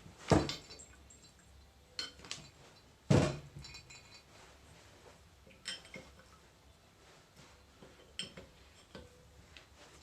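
Metal tools and hydraulic valve parts clinking and knocking as they are handled, with two louder knocks, one just after the start and one about three seconds in, and scattered lighter clinks after.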